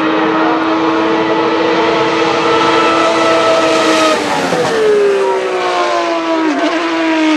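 1989 Ferrari 640 Formula 1 car's 3.5-litre V12 at high revs, a steady high-pitched howl as it approaches. About four seconds in the car passes by and the note drops in pitch, with a brief dip in the note near the end as it goes away.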